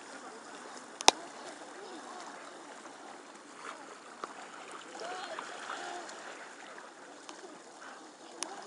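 Shallow sea water splashing and lapping as dogs swim and people wade through it. A sharp click comes about a second in, and a smaller one near the end.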